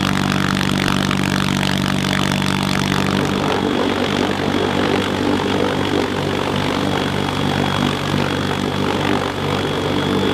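CH-53K King Stallion heavy-lift helicopter heard from inside the cabin with the rear ramp open: its engines, rotor and gearbox make a loud steady drone with a thin high gearbox whine. The low tones of the drone change about three and a half seconds in.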